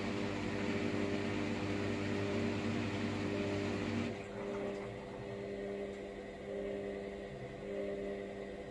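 Hoover washer-dryer running its drying cycle: a steady motor hum with a whirring rush. About four seconds in, the rush and the deepest hum drop away and a quieter steady hum carries on.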